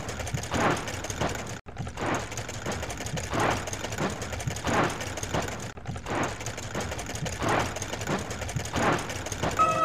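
Car-wash machinery sound effect: a mechanical swishing that pulses a little under twice a second and drops out for an instant twice. Music with held tones comes in near the end.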